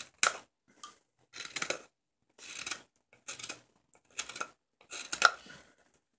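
Sloyd knife shaving strips off a silver birch ladle handle: a run of short scraping cuts, about one to two a second, that stop about half a second before the end.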